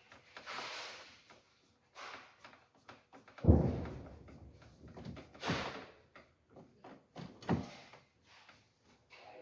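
Handling sounds from a car door's exterior handle being taken off: a few short scrapes and clicks, with one heavy thump against the door about three and a half seconds in, and further knocks about two and four seconds later.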